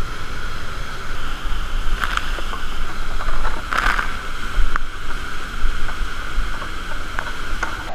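Steady rush of a waterfall and whitewater close by, with a few short sharp knocks on top.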